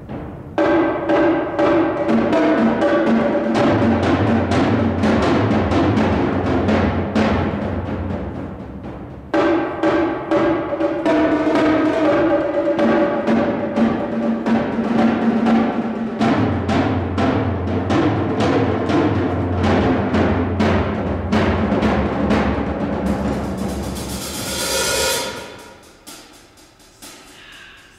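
Percussion ensemble playing fast, dense rhythms on drums and timpani, with two spells of a low timpani rumble underneath. Near the end a high shimmering swell builds and then cuts off sharply, leaving the hall ringing.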